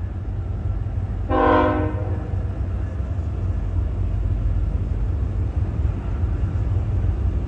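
Freight train locomotive air horn giving one short blast about a second and a half in, over the steady low rumble of the approaching train.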